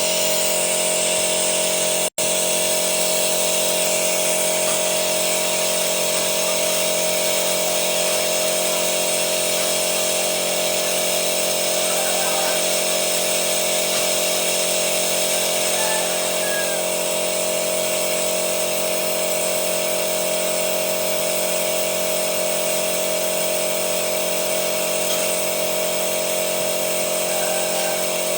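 Machinery running steadily with a constant whine over a hiss, unchanged throughout, broken only by a momentary dropout about two seconds in.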